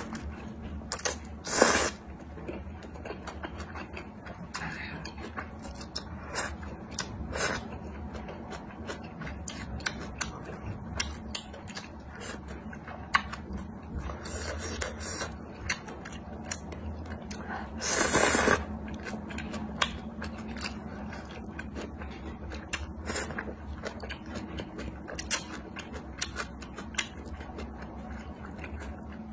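A person eating thick spicy noodles close to the microphone: wet chewing and small mouth clicks throughout, broken by several loud slurps as strands of noodle are sucked in, the longest a little past the middle.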